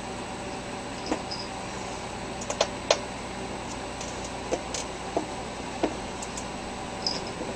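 Irregular light clicks and taps, about seven of them, over a steady background hiss; the sharpest comes about three seconds in.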